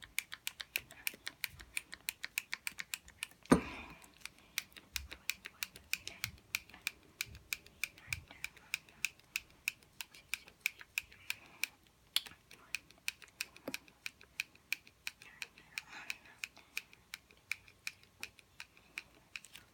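A lotion pump bottle being pressed over and over, each squirt a sharp click, about five a second. A louder knock comes about three and a half seconds in.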